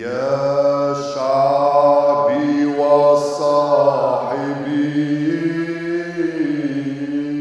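Unaccompanied low male chanting of a liturgical hymn: one long melodic phrase of held notes that glide slowly up and down, breaking off near the end.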